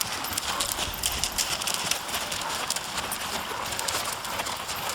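Hoofbeats of Rocky Mountain Horses being ridden: a quick, irregular run of hoof strikes.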